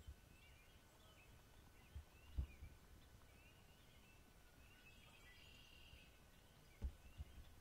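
Quiet marsh ambience: faint, repeated short bird calls. A few soft low thumps come about two seconds in and near the end.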